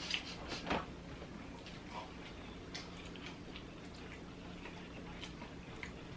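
Close-miked chewing of chicken McNuggets: soft, irregular mouth clicks and smacks, a few louder ones in the first second, over a steady low hum.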